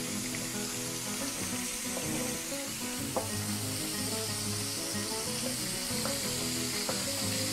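Salt cod frying in a pan, a steady sizzle, with a few sharp taps of a knife on a wooden cutting board as rosemary is chopped.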